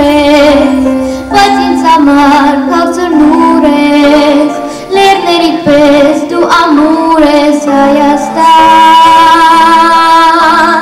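A girl singing a song live into a handheld microphone over musical accompaniment, her held notes wavering with vibrato, ending on a long held note near the end.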